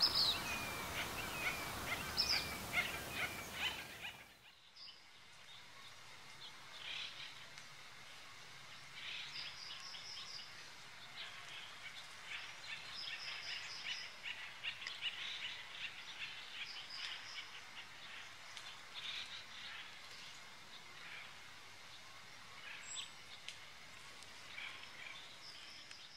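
Small birds chirping and calling in quick, short notes. For the first four seconds a run of repeated short falling notes sits over a noisy background. At a sudden drop about four seconds in, this gives way to a quieter, continuous mix of chirps and trills.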